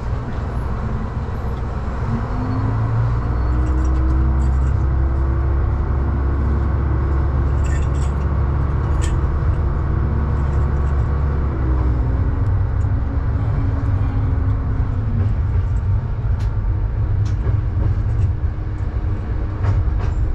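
Diesel railcar engine pulling away from a station. It revs up with a rising pitch and a heavy low rumble, holds steady under power, then eases off and falls in pitch after about twelve seconds as the train coasts. A few sharp clicks come from the wheels on the track.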